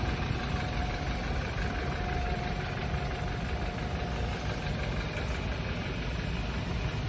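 Car engine running steadily with an even low rumble, the freshly repaired BMW 328i.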